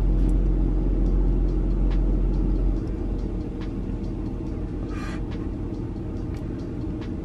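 Steady low rumble of a car's cabin with the vehicle running. It drops noticeably in level about three seconds in, with a brief hiss near five seconds.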